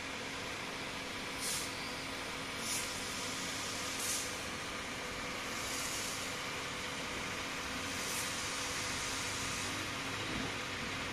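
Engine-driven power sprayer running steadily, with the hiss of a long high-pressure water jet from an aluminium spray gun. A few short, sharper hisses break in over the steady noise.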